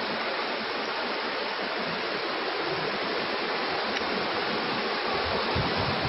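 Mountain stream rushing and splashing over boulders, a steady noise that swells slightly near the end.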